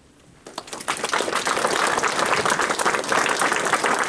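Audience applauding: dense hand clapping that starts about half a second in, swells within a second and holds steady.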